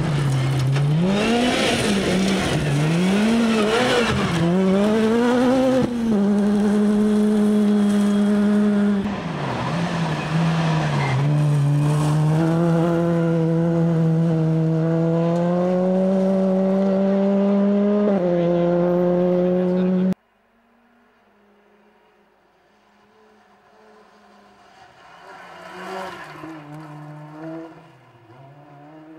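Ford Fiesta rally car at full stage pace on gravel: the engine revs rise and fall through gear changes and corners, then hold high for several seconds at a time. About two-thirds of the way in, the sound cuts suddenly to a much quieter, more distant engine that swells briefly as the car goes by.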